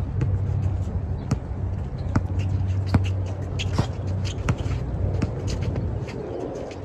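A basketball is dribbled on an outdoor hard court, with sharp bounces about every three-quarters of a second, over a low steady rumble.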